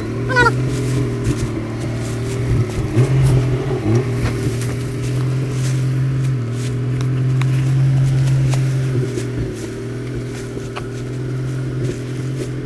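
Jeep Wrangler engine running at low revs as the Jeep crawls along an off-road trail, its pitch dipping and rising a few times with the throttle, with occasional clicks and knocks.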